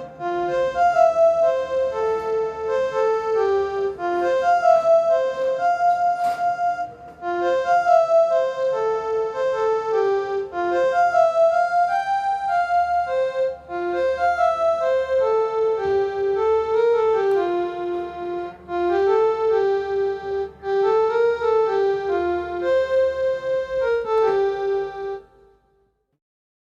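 Samsung Galaxy S6 ringtone playing: a melody of clear, piano-like notes that stops near the end.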